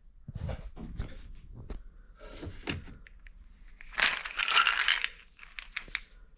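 A supplement package being handled: scattered small clicks and rustling, with a louder crinkling burst about four seconds in.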